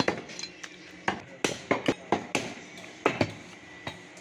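Meat cleaver chopping beef on a wooden chopping block: a run of sharp, irregularly spaced chops, about ten in all.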